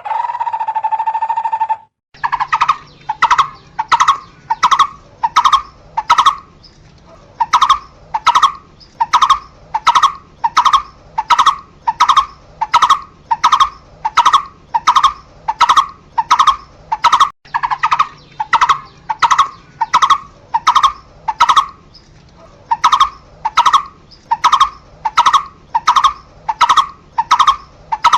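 Barbet calling: after a held note about two seconds long and a short break, one hollow note repeated evenly, roughly two to three a second, in a long unbroken series.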